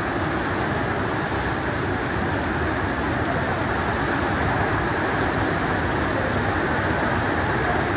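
Heavy rain falling steadily on a wet concrete yard and puddles, a dense, even hiss of drops.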